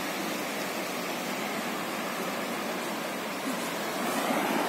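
Small sea waves washing onto a sandy beach: a steady hiss of surf that swells a little near the end as a wave runs up the shore.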